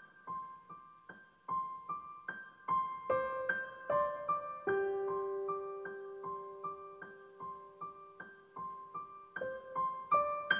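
Background music: a slow, gentle piano melody of single struck notes, with one long held note in the middle.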